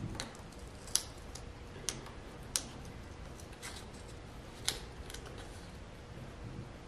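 Copper foil tape being peeled up off a paper card by hand. The foil and card stock give a handful of short, sharp crackles and ticks, about one a second.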